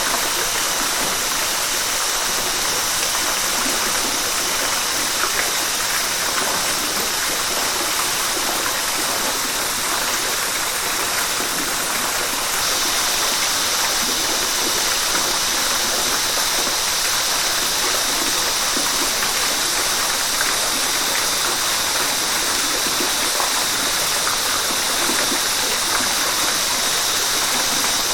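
River water rushing and splashing over rocks in a steady, continuous hiss, its high hiss lifting slightly a little under halfway through.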